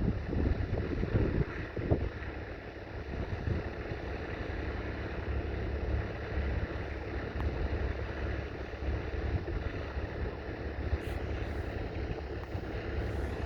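1966 McCormick 434's 2.5-litre four-cylinder diesel engine running steadily, with wind buffeting the microphone.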